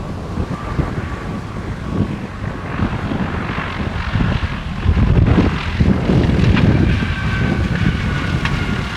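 A small propeller airplane's engine drones past, its tone growing from about three seconds in, under heavy gusty wind buffeting on the microphone.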